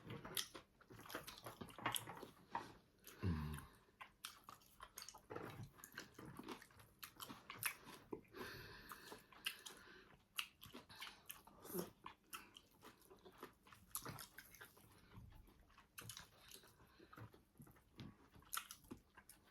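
Close-up eating sounds: chewing, lip smacks and wet mouth clicks scattered throughout, with a few short hums.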